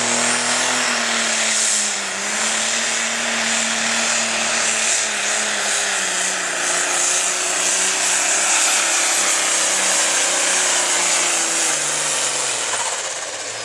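Turbocharged diesel engine of a John Deere light pro stock pulling tractor running at full power under load as it drags the weight sled. Its pitch wavers as it bogs and recovers, then falls near the end as the tractor slows to a stop, over a loud high hiss and whine.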